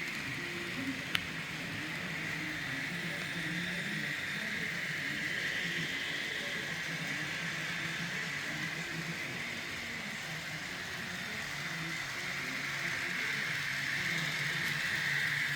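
N-scale model train running on its track: the steady whir of the small locomotive's motor and gearing with the wheels rolling on the rails, growing louder near the end. A single sharp click about a second in.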